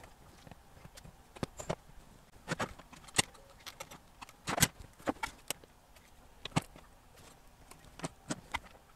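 Irregular clicks and knocks from a subwoofer amplifier plate and its parts being handled, turned over and set down on a workbench during reassembly, with the loudest knock about halfway through.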